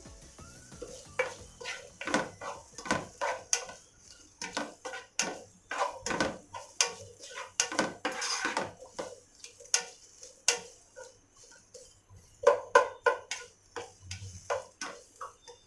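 A plastic slotted spoon scraping and knocking against a non-stick pot as chopped onions are stirred, in quick, irregular strokes about two a second, with the loudest strokes near the end.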